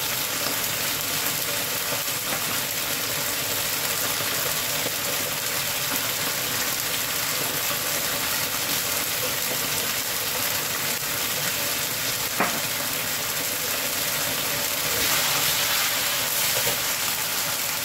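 Sweet-and-sour sauce with onion and green pepper sizzling steadily in a wok. About fifteen seconds in, a spatula starts stirring it and the sizzle grows a little louder; a single short click comes a little before that.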